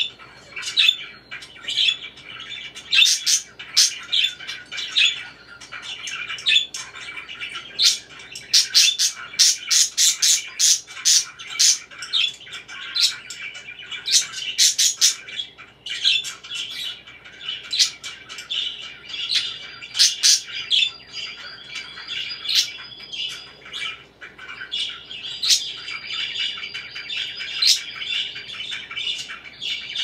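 Caged budgerigars chattering and warbling continuously, with many sharp, loud chirps on top that come thick and fast for several seconds in the first half.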